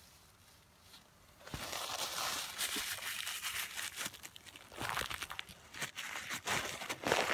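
Paper napkins crumpling and crinkling close to the phone's microphone as they wipe it clean, starting about a second and a half in, with louder bursts of crunching.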